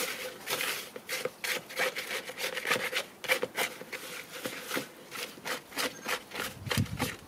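A plastic spatula stirring gritty resin mortar, thickened resin mixed with sand and perlite, in a plastic cup: repeated scraping strokes against the cup wall, about two to three a second.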